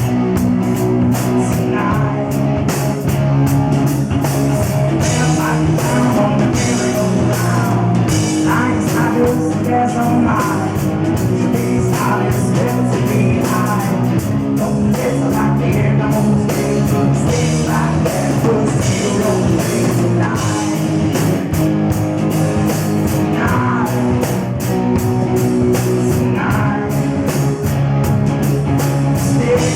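A rock band playing live: drum kit with a steady run of cymbal hits under guitar, at a loud level without a break.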